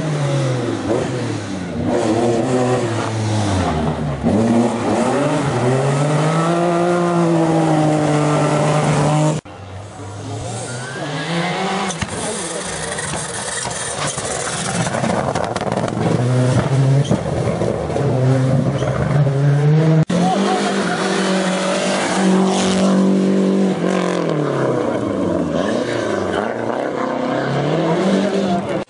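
Rally car engines revving hard, their pitch dropping and climbing again as they brake, shift and accelerate. The sound breaks off abruptly twice, each time going over to another car.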